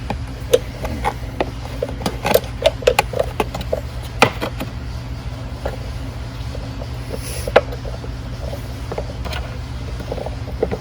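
Irregular metallic clicks and taps of a wrench working a 10 mm nut loose on a bolt, over a steady low hum.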